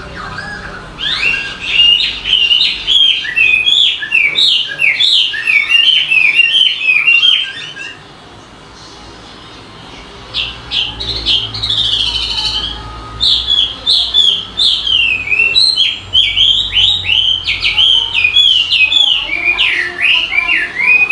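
A songbird singing fast runs of varied chirping notes. It pauses for about two seconds near the middle, then starts again.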